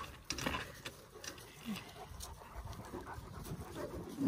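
Cane Corso adults and puppies playing together: scattered scuffles and light knocks, with faint dog vocal sounds and a brief low rising one about halfway through.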